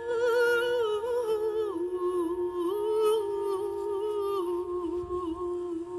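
Wordless humming of a slow melody that drifts up and down, over the steady ringing tone of a singing bowl. The voice stops shortly before the end while the bowl keeps ringing.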